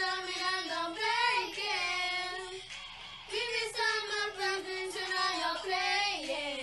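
Girls singing, with long held notes and a short break for breath about three seconds in.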